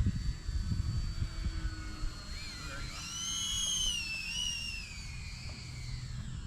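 High electric-motor and propeller whine from radio-controlled aircraft overhead. It rises in pitch about three seconds in, then slowly falls away. Low wind rumble on the microphone runs under it, strongest early on.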